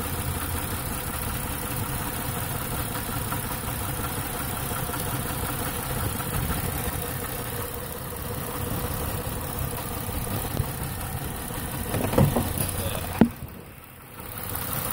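A 2008 Ford Taurus X's 3.5-litre V6 idling steadily while misfiring on cylinder 1, whose injector gets no pulse because of a break in its control wire. A single sharp click comes near the end.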